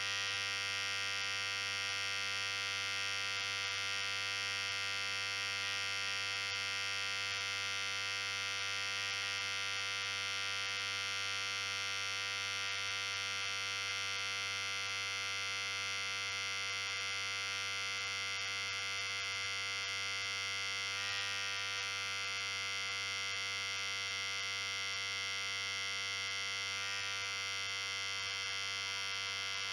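Electric hair clipper running steadily with an even, unbroken buzz.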